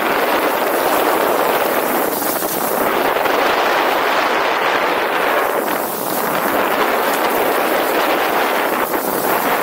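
Skis hissing over snow with wind rushing across the microphone at speed, a steady loud noise that eases briefly three times as the skier turns.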